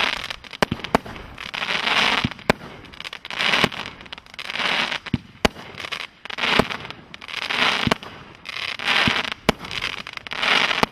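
Merlin's Cauldron 36-shot firework cake firing its shots about once a second. Each shot is a sharp launch thump followed by a burst of crackling sparks.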